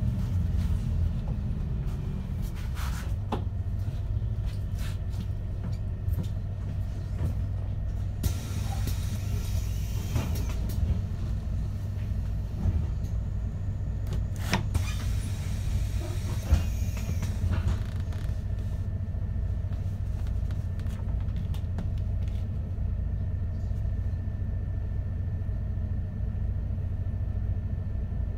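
Steady low rumble of a MAN Lion's City bus, heard from inside, as it pulls into a stop and stands idling. Scattered clicks and rattles, with two short hisses partway through.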